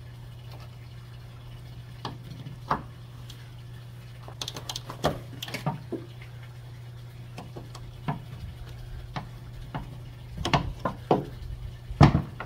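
Scattered light clicks and knocks from hands working a trunk lid gas strut at its mount, the loudest near the end, over a steady low hum.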